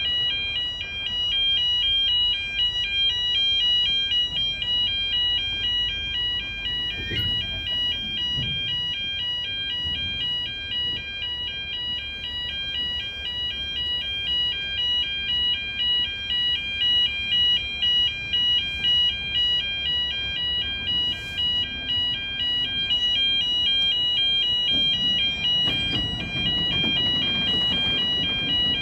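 Level crossing alarm sounding continuously as a high, rapidly alternating two-tone warble, over the low rumble and clatter of loaded cement tank wagons rolling over the crossing. Near the end the rumble swells as a Class 66 diesel locomotive's engine comes through.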